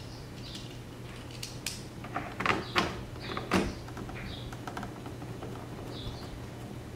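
Small hand tool clicking and tapping as little screws are driven back into the car's rear bumper corner, with a cluster of sharp clicks about one and a half to three and a half seconds in.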